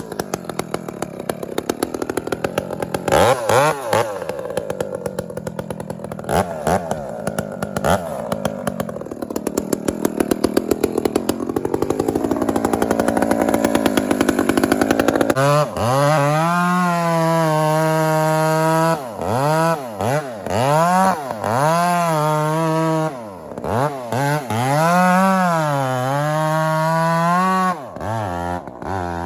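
Gas chainsaw cutting into a large rotten cedar, working hard in the wood for about the first fifteen seconds. It then runs at high revs with the throttle rising and falling, easing off briefly a few times.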